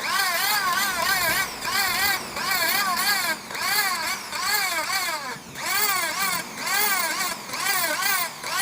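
Sanding on a CNC-machined surface to remove the machining texture: a squealing whine over a scratchy hiss that rises and falls in pitch about three to four times a second, in runs broken by short pauses roughly every second.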